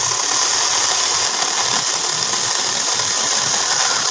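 Small 12-volt battery mini chainsaw with a 6-inch bar running steadily while its chain cuts through a dry branch about 3 inches thick.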